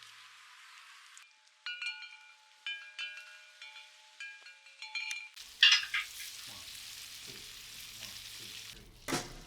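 Several metallic clinks, each ringing on briefly, then food sizzling and crackling on an open-fire grill.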